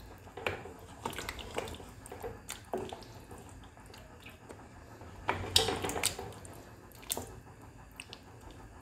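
Spoon stirring a thick, simmering tomato stew in a metal pot: wet squelching and popping with irregular small clicks, and one louder knock about five and a half seconds in.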